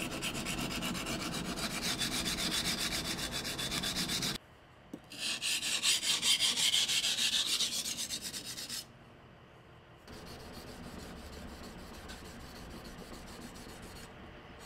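Japanese chef knife blade being sharpened on wet whetstones: quick, evenly repeated strokes of steel scraping across stone. The strokes come in three stretches with short breaks between them, each on a different stone, and the last stretch is quieter.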